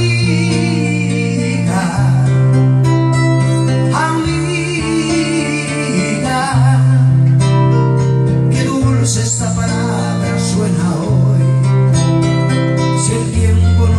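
Music: a man singing over plucked guitar with a bass line, whose low held notes change about every two seconds.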